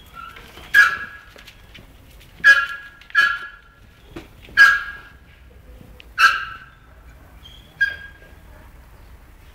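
Small dog yelping: six short, high yelps a second or two apart.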